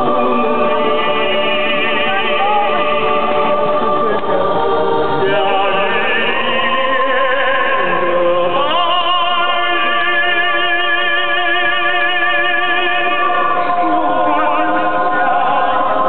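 Large choir singing held notes with vibrato over music, with the pitch sliding upward about eight and a half seconds in.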